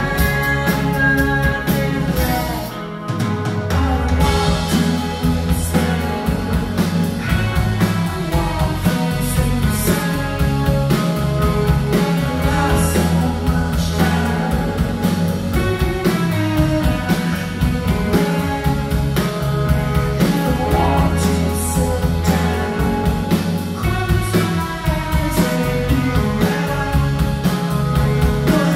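Live psychedelic indie rock band playing, with bass, guitars and drums; the sound drops briefly about three seconds in, then the full band comes back in.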